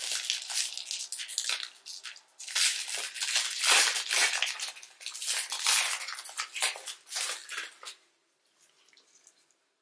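Plastic wrapper of a Panini Prizm Draft Picks card pack crinkling and crackling as it is handled and torn open, in quick irregular rustles that stop about eight seconds in.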